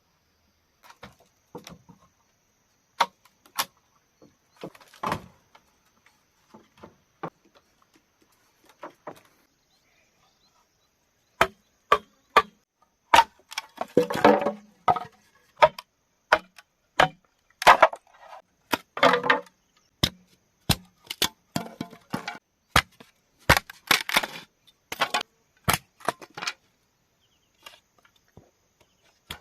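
Bamboo being chopped: sharp, irregular strikes, a few at a time for about the first ten seconds, then coming fast, often several a second.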